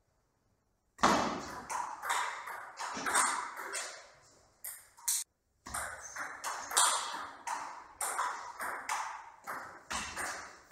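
Table tennis rally: the ball clicks off the bats and bounces on the table in a quick, uneven string of sharp ticks, about two to three a second, each with a short echo. It starts about a second in, and there is a brief dropout to silence about halfway.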